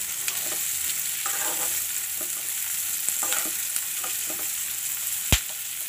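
Chopped green capsicum sizzling in hot oil in a metal kadai while a spoon stirs and scrapes it around the pan. A single sharp knock comes about five seconds in.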